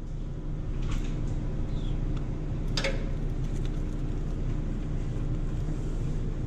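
Steady low machine hum, with a light click about a second in and a sharper plastic crackle near three seconds from handling the printer's ink tubes and fittings.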